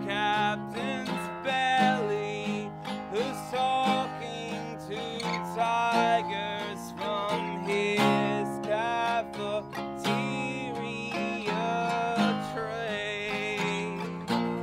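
A man singing over a strummed acoustic guitar: steady chords strummed in an even rhythm under a sung melody that slides and holds between notes.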